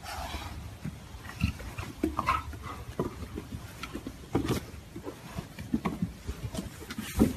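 Big cats (jaguars and a leopard) play-fighting, giving short grunts and growls in irregular bursts, among the knocks and scuffles of their paws on the paving.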